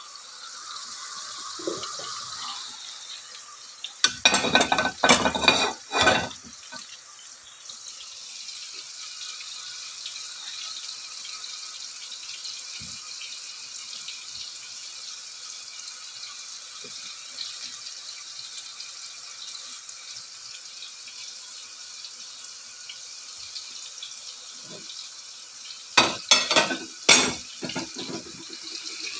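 Potato fries deep-frying in a pan of hot oil, a steady sizzle. Bursts of clattering from cookware and utensils come about four seconds in and again near the end.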